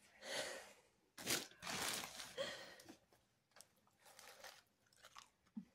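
A person biting and chewing rice thins (thin puffed-rice crackers), giving several short, quiet crunches.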